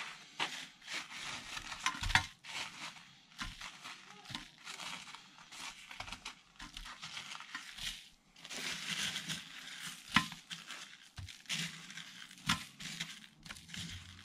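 Newspaper crinkling and rustling as hands handle stiff, salt-dried squid pieces in a newspaper-lined tray, with a few sharp knocks, the loudest about two seconds and ten seconds in.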